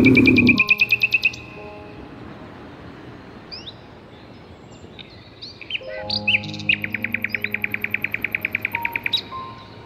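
Bald eagle calling: a rapid series of high chirps, about ten a second, once near the start and again in a longer run in the second half, over soft background music.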